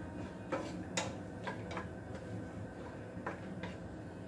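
Garlic and ginger frying in a little oil in a nonstick frying pan, stirred with a wooden spatula: a scattering of sharp clicks and pops at irregular intervals over a low steady hum.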